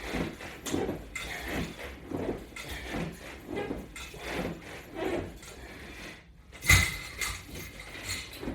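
Repeated crunch exercise on a resistance-band latch bar rig: soft rhythmic rustling and breathing, a little faster than one stroke a second. About two-thirds of the way in comes a single sharp metallic clink.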